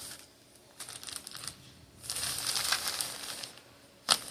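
Plastic packaging crinkling in two spells as it is handled, with a sharp tap near the end.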